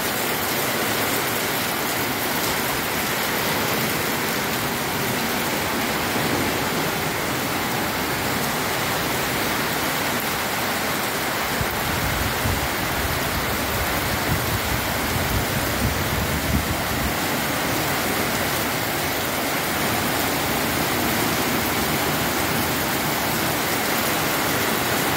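Steady, heavy rain falling on paving and roofing, an even hiss with some low rumbling about halfway through.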